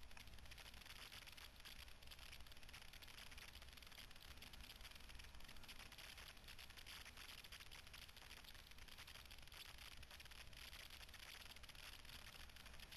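Near silence: a faint, steady hiss from the camera's own recording noise.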